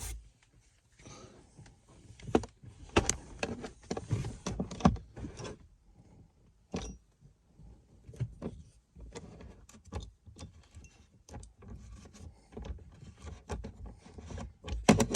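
Screwdriver working a screw out of a plastic dashboard trim piece: irregular small clicks, scrapes and rattles of the tool, screw and plastic being handled.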